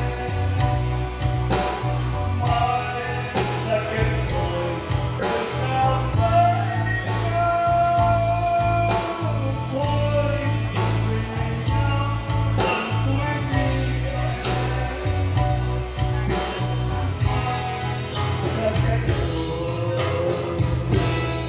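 A man singing into a handheld microphone over amplified backing music with a steady beat and a strong bass line.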